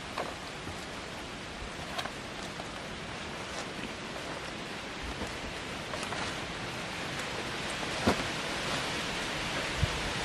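Wind rushing through forest trees as a steady noise that builds slightly, with a few sharp snaps or knocks. The loudest of these comes about eight seconds in.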